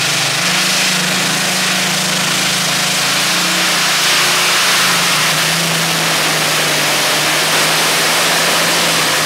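Modified pulling tractor Green Spirit VI's engine at full throttle, hauling the weight sled down the track on a full pull. It is loud and steady, with an even pitch that drops slightly about halfway through the run.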